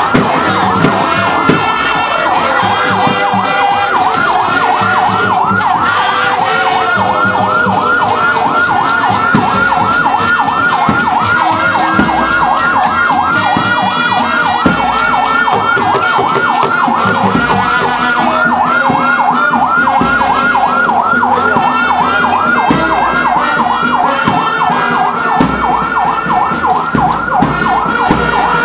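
Ambulance siren in a fast yelp: a wail sweeping up and down in pitch several times a second, without a break.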